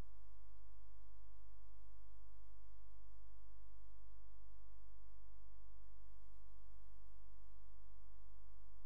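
Steady electrical hum with a ladder of even overtones, unchanging throughout; no other sound stands out.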